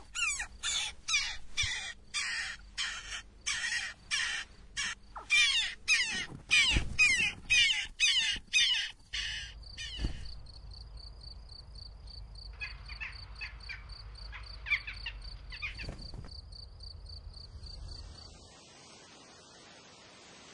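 Jackdaws calling: harsh, rapid calls about twice a second for the first ten seconds, then fainter, scattered calls, dying away near the end.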